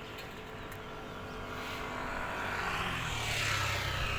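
A motor vehicle's engine approaching and growing steadily louder, loudest near the end.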